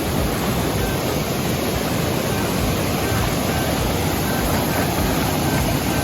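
Steady rush of a waterfall, a loud even wash of falling water.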